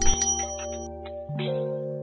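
Background music of held chords that shift to a new chord a little over a second in. It opens with a couple of sharp clicks and a short high ding, like a subscribe-button sound effect.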